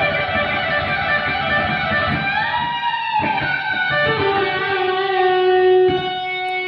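Electric guitar played alone at a sound check: long sustained notes, with one note bent upward about two seconds in and a change of note about three seconds in.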